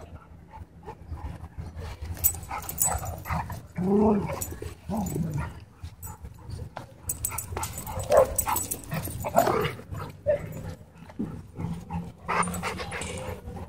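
Dogs vocalizing during rough play over a rope toy: a few short whines and yips, scattered through.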